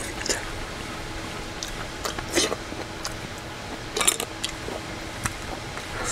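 Close-up eating: wet chewing and mouth noises, with a few sharp clicks of wooden chopsticks against a stainless steel bowl and metal side dish. The loudest clicks come about two and a half seconds and four seconds in, over a faint steady hum.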